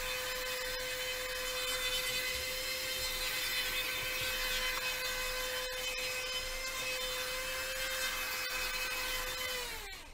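An electric motor running steadily with a high whine over a rushing hiss, then spinning down in falling pitch just before the end as it is switched off.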